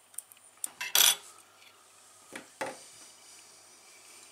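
Small metal fly-tying tools clicking and clinking: a few light ticks, one sharp click about a second in, then two softer clinks a little later.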